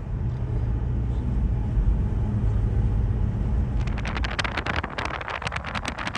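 Vehicle driving, heard from inside: a steady low rumble of engine and road. About four seconds in, a dense run of irregular clicks and rattles begins as the tyres go over rough, unpaved road.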